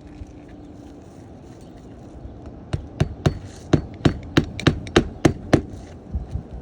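Hammer driving roofing nails into asphalt shingles: about ten quick, evenly paced strikes over three seconds, starting a few seconds in.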